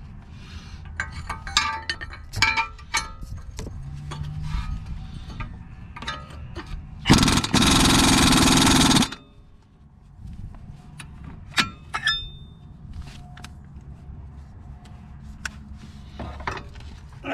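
Light metallic clinks of tools and parts being handled, broken a little before the middle by an impact wrench run in one loud burst of about two seconds.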